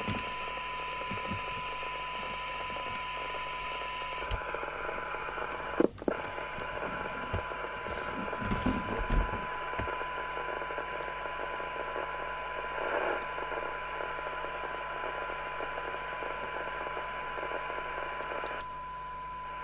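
Steady test tone over hiss from a Rotel RVC230 FM CB radio's receiver through the instrument speaker, fed a modulated signal from a signal generator for a SINAD sensitivity check. A sharp click comes about six seconds in, and the hiss drops a little near the end.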